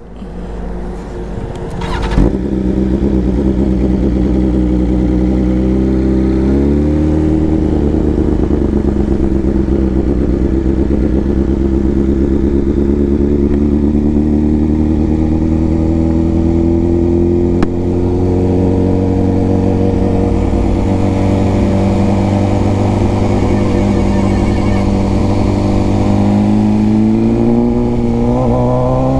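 A 1000cc superbike's inline-four engine pulling away and riding on. It steps up in pitch a few seconds in, holds a steady, slowly rising note, and climbs again near the end as it accelerates.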